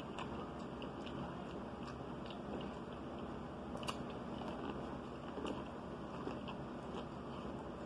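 Biting kernels off a cob of corn on the cob and chewing them, with small irregular crunchy clicks.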